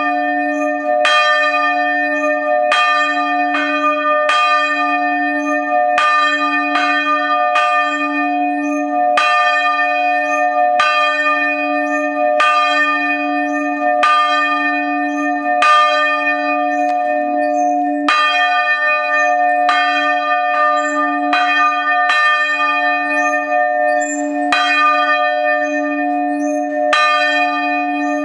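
Several church bells ringing together, heard close up inside the belfry: a steady stream of overlapping clapper strikes, roughly one or two a second, over a low hum that rings on between them.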